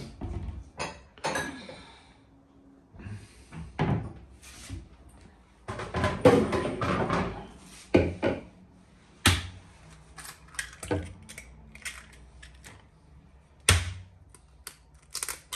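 Kitchen clatter: a cupboard opened and closed and dishes knocking, heard as a run of separate knocks and clicks with a longer stretch of rummaging clatter about six seconds in.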